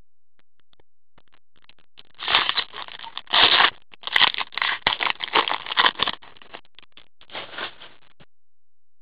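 A hockey card pack's wrapper being torn open and crinkled by gloved hands, with loud bursts of crackling and rustling for about four seconds and a short rustle near the end.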